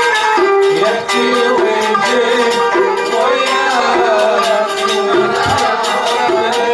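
Iraqi traditional ensemble music: bowed violin and a struck santur playing a Middle Eastern melody together, with quick struck notes throughout.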